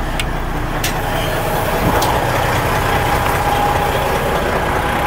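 Semi truck's diesel engine idling steadily, with a thin steady whine joining about two seconds in.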